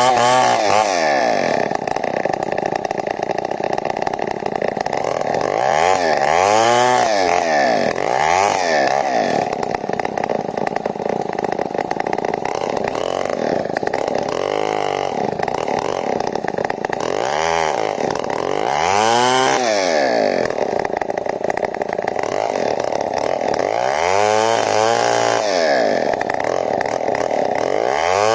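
New West 070 two-stroke chainsaw running at high revs while cutting a log lengthwise into beams, its engine pitch rising and falling again and again as the throttle and load change.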